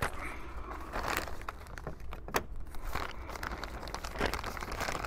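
Dry gardening soil being handled, with irregular crinkling and rustling, scattered small crackles and one sharper click a little over two seconds in.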